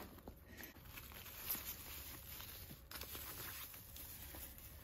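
Faint rustling and handling noise as a quilted leather flap bag is turned over and its flap opened, with the tissue paper wrapped around its chain strap crinkling. There is one slightly louder tap about a second and a half in.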